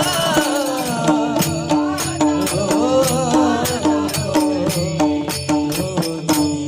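Marathi bhajan music: a wavering melody over a repeated low note, with quick, evenly spaced percussion strikes several times a second.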